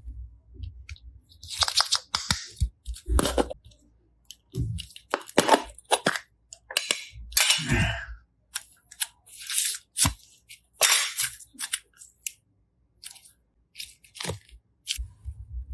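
Slime being worked by hand: a string of irregular sticky crackles and squelches, roughly one every second, some with a low thud beneath.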